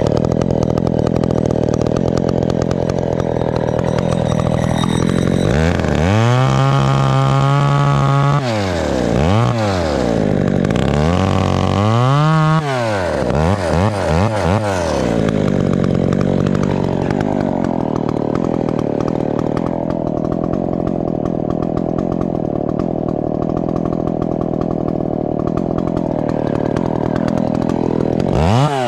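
Ported Husqvarna two-stroke chainsaw cutting into a grand fir while felling it, running at high revs. Between about 6 and 15 seconds in, the revs drop and climb back several times, then it runs steadily again, dropping once more near the end.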